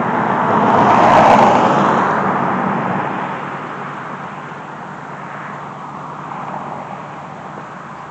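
A car passing by, its road noise swelling to a peak about a second in and then fading away over several seconds.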